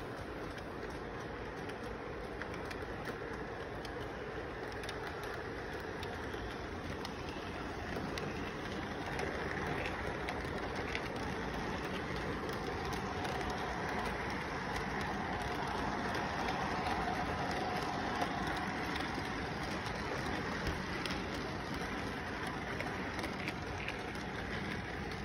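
Model train rolling past on its track, a steady rumbling rush of wheels and motor with faint ticks. It grows louder from about eight seconds in as the cars pass close by.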